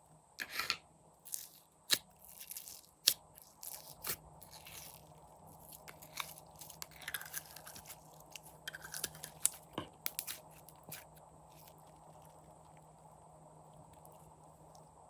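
Slime being squished and mixed by hand, giving irregular sticky clicks, small pops and crackles. The handling sounds stop about eleven seconds in, leaving a faint steady hum.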